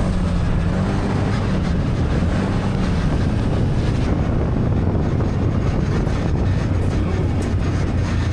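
Side-by-side UTV engine running steadily as it drives the course, its pitch wavering a little.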